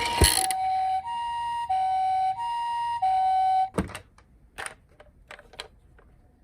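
Toy ambulance's electronic siren sounding the two-tone hi-lo "pee-po" pattern, a lower and a higher beep alternating about five times, cut off by a sharp click just under four seconds in. A few light clicks follow.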